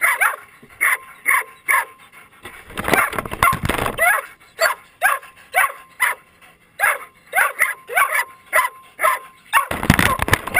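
Greyhound barking over and over in short, high, falling yips, about two a second, with a few pauses. Twice, about three seconds in and near the end, a dog's plastic basket muzzle knocks and scrapes against the RC truck close to the camera.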